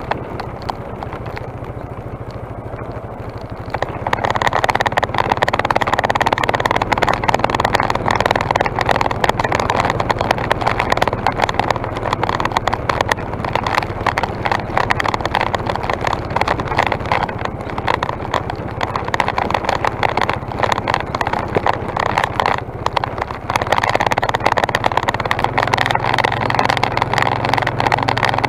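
ATV engine running under way on a gravel road, a steady low engine note under a rough rush of tyre and wind noise; it gets louder about four seconds in.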